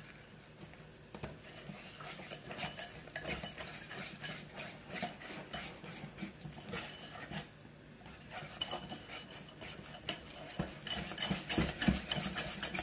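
Metal balloon whisk beating a thick flour-and-water batter in a ceramic bowl, its wires clicking against the bowl in quick strokes. The whisking pauses briefly past the middle, then picks up faster and louder near the end.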